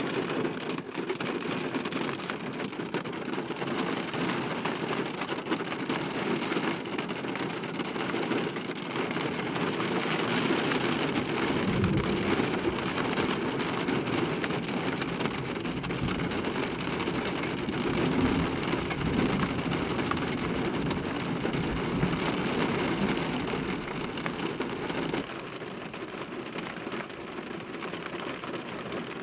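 Steady rain falling on a car, with a low rumble of thunder starting about eleven seconds in and lasting around twelve seconds. The rain gets a little quieter near the end.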